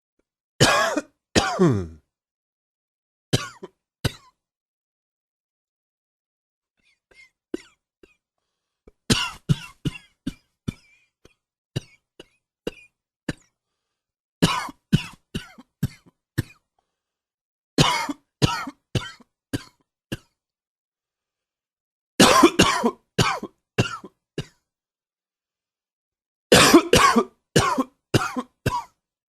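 A man coughing repeatedly, in bouts of several quick coughs each with pauses of a few seconds between. Near the start there are a couple of single coughs, one dropping in pitch like a throat clear.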